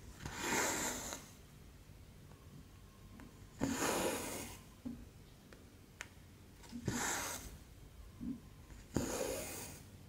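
Cotton embroidery thread being drawn through cross-stitch fabric: four swishing pulls, one about every three seconds, with a few faint needle clicks between them.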